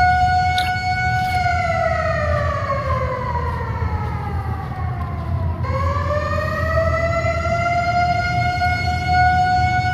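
A siren holding a steady pitch, then slowly winding down over several seconds. About halfway through it breaks off abruptly and winds back up to its full pitch, where it holds again. A steady low rumble runs underneath.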